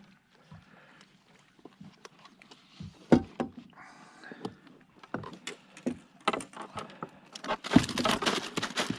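Scattered clicks, knocks and rattles of a hooked fish being worked free of the hook and a landing net in a boat, with a denser burst of rattling and thumps about eight seconds in.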